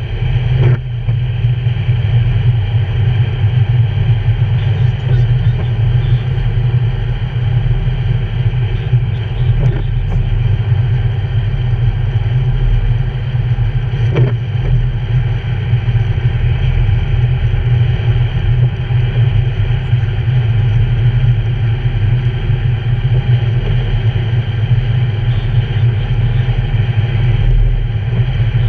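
Steady car cabin noise at freeway speed: a low rumble of engine and road with tyre noise on wet pavement.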